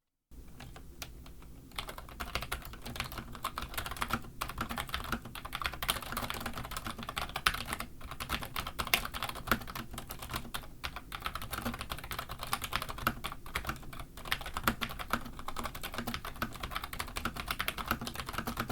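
Typing test on an iCL DRS keyboard with black tactile N&B Space Invader switches: fast, continuous keystrokes, a dense run of clicks that starts lighter and picks up after about two seconds.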